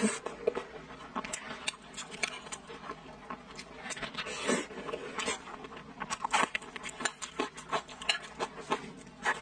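Close-miked eating: wet chewing and mouth smacks on braised pork intestine with rice and glass noodles, a dense run of short clicks, with a metal spoon scraping the bowl.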